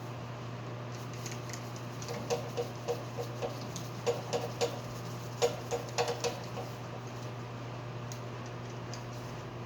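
A quick run of about a dozen small, sharp clicks and taps with a slight ring, between about two and seven seconds in, over a steady low hum.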